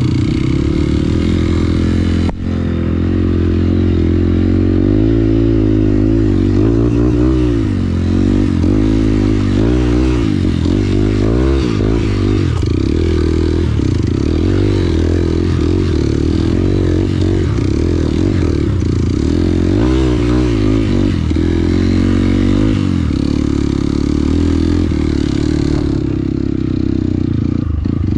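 Motorcycle engine running close by while riding, its revs rising and falling again and again as the throttle is worked.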